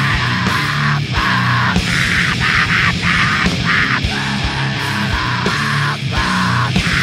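Loud heavy rock music, dense and continuous.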